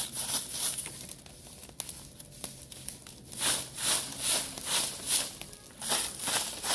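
A stiff stick broom sweeping dry leaves and grit across rock in scratchy strokes, a few scattered ones at first, then a steady run of about two strokes a second from about halfway through.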